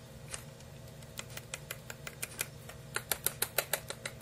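Small sharp clicks of 00 buckshot pellets being placed by hand into an opened 12-gauge shotgun shell and settling against each other, sparse at first, then a quicker run of about five or six clicks a second near the end.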